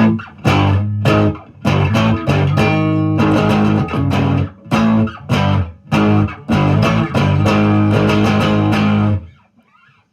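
Electric guitar through an overdrive pedal, neck pickup, no delay, strummed in short choppy chords with brief gaps between them. The playing stops about nine seconds in.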